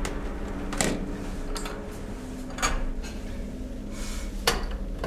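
A handful of short knocks and clatters from objects being handled on a lab bench, over a steady low hum.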